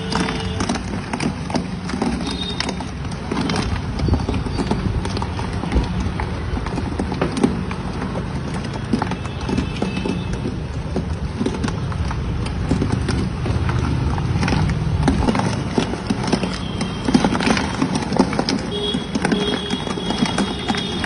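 Busy street-stall noise: many irregular knocks and clatters over a steady street background, from the vendor working a rotating frozen metal drum with a ladle.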